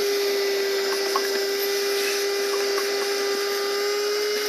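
Wet/dry shop vacuum running steadily with a constant motor whine, sucking leaves and grass out of the bottom of an AC condenser unit.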